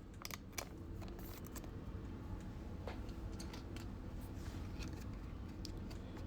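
Faint clicks and rustles of trading cards and packaging being handled, over a steady low hum.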